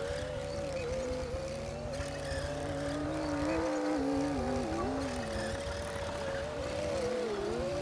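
Komatsu D60P bulldozer's diesel engine running under load, its pitch sagging and recovering a few times over a steady low rumble.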